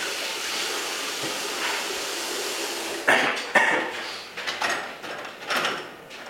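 A steady rushing hiss that starts suddenly and runs about three seconds, followed by several loud, short rattling knocks.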